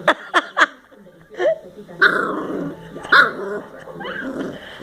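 Boxer puppy vocalizing as it yawns: three quick high yips near the start, then longer squeaky whining cries about two and three seconds in.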